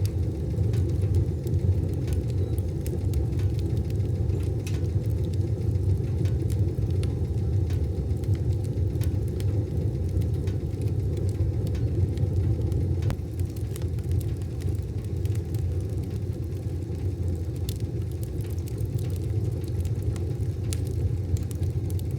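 Wood stove fire burning with a steady low rumble and faint, scattered crackles.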